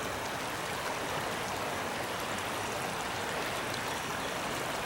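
Shallow creek rushing steadily over small rocky rapids, an even, continuous water sound.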